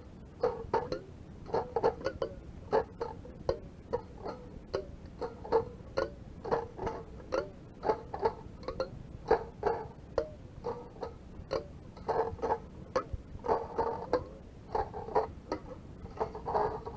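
Lo-fi noise music played back from a cassette tape: a string of short, choppy plucked notes and clicks, about two a second, coming in irregular clusters.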